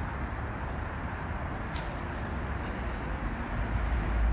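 Steady background road traffic noise. A vehicle's low rumble grows louder near the end, and there is one faint click about two seconds in.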